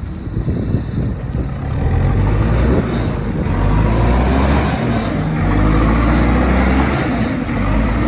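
2010 JCB 3CX backhoe loader's diesel engine pulling the machine along, getting louder about a second and a half in as it works harder, with a brief drop near the middle before it pulls strongly again.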